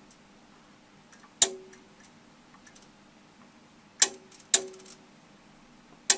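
Sharp clicks, four of them spaced unevenly, each followed by a short ringing tone, while the UV insect killer fails to start, its tube flashing on and going out again.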